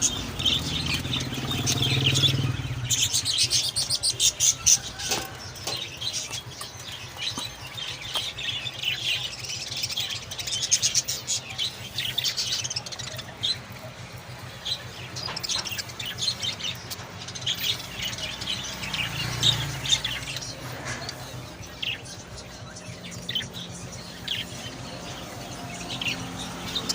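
Many small caged birds for sale chirping and tweeting at once, a dense overlapping chatter of short high calls, with a low background rumble near the start.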